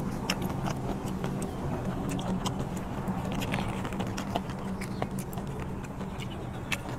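Close-miked chewing of rubbery octopus: frequent short wet mouth clicks and smacks, over a steady low hum.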